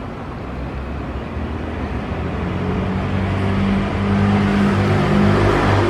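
Jet airliner's engines running, a steady rushing noise with a low hum that grows gradually louder as the aircraft draws nearer.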